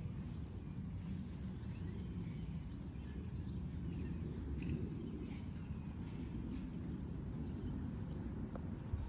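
Outdoor background: scattered short bird chirps over a steady low rumble.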